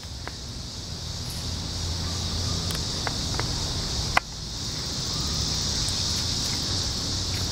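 Steady high-pitched insect chorus, with low rumbling wind and handling noise on the microphone and a sharp click a little past four seconds.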